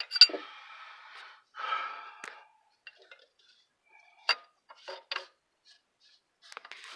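A man breathing hard with effort while straining on a wrench to loosen a transmission-mounted reverse light switch. A sharp metallic click comes right at the start, a few more follow around four to five seconds in, and a heavy breath comes near the end.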